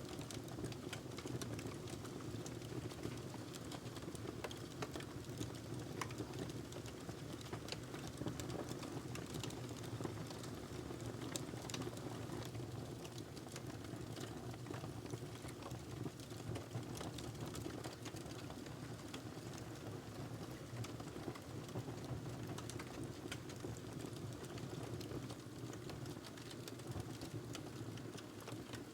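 Wood fire crackling in a fireplace: frequent sharp pops and snaps scattered over a steady low rumble.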